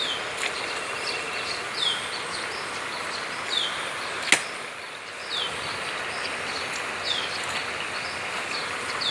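Steady rush of river water, with a bird repeating a short, high, falling whistle about every second and a half to two seconds. A single sharp click a little past the middle is the loudest sound.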